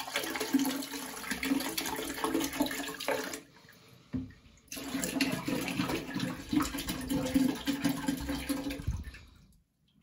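Bleach pouring from a large bottle into a drained ceramic toilet cistern, in two long pours with a break of about a second between them, stopping about a second before the end.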